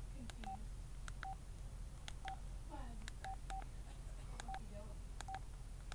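LG Flare flip phone's keypad being pressed repeatedly, each press giving a click and a short beep at one steady pitch, about ten presses at uneven intervals, while navigating the phone's menus.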